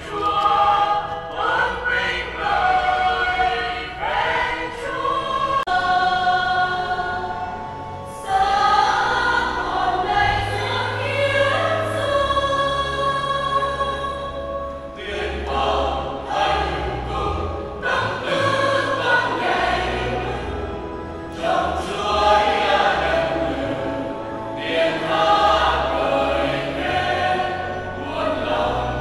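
A church choir sings a Catholic hymn in several voices, with held low bass notes in the accompaniment, as the recessional at the close of Mass.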